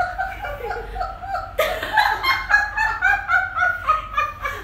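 Several women laughing together in quick, high-pitched repeated pulses, getting louder about one and a half seconds in.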